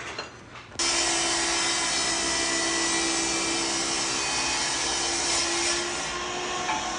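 Electric power tool switched on about a second in, then running steadily with a whine; the whine's pitch shifts slightly near the end.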